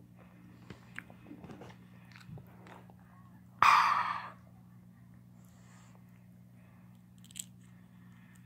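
Close-up chewing of cocktail shrimp: small scattered mouth clicks over a steady low hum. About three and a half seconds in comes a loud rubbing burst lasting under a second, as a hand passes over the phone's microphone.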